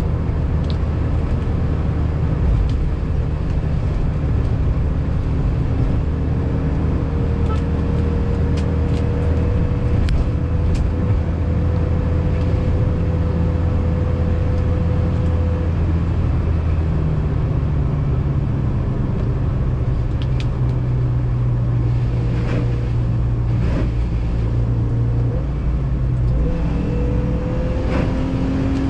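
Toyota Veloz 1.5 manual's four-cylinder engine running steadily under way, heard inside the cabin together with tyre noise on a wet road. The engine note drops a little about two-thirds of the way through and starts rising again near the end.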